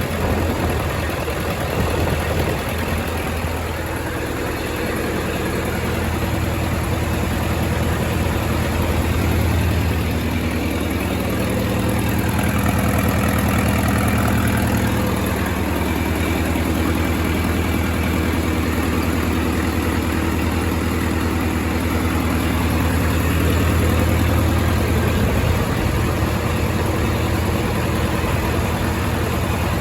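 1928 Farmall Regular tractor's four-cylinder engine running at idle. Its tone shifts a little about midway and again near the end.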